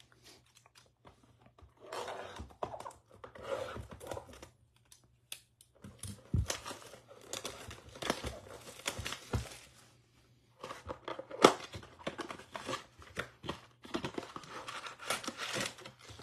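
Clear plastic wrap being torn and crinkled off a cardboard trading-card blaster box, then the box opened and its foil card packs pulled out, rustling with sharp clicks and snaps; the loudest snap comes about eleven seconds in.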